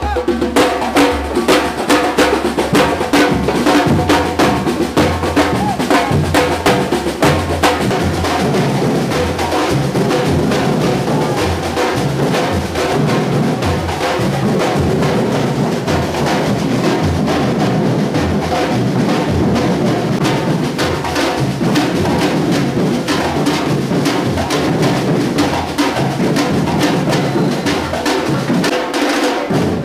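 Afro-Brazilian batuque drum ensemble playing together: a loud, driving rhythm of deep bass drum beats under dense, rapid snare-type strokes.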